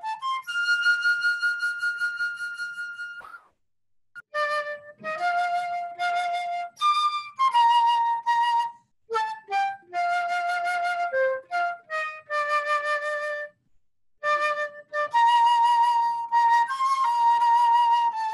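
A single flute-like wind instrument plays the melody of an Easter hymn, one note at a time, in short phrases with brief pauses between them and a long held high note near the start.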